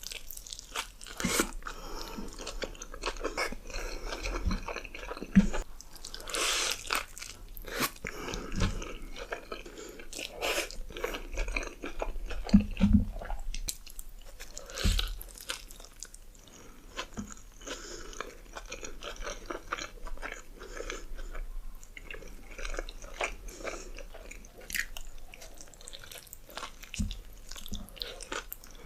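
Close-miked eating of large juicy burgers: repeated biting, crunching and wet, open-mouthed chewing in irregular bursts.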